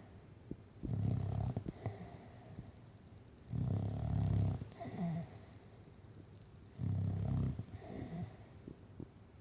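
Staffordshire bull terrier snoring loudly: three deep snores about three seconds apart, each lasting about a second, with quieter rasping breaths between.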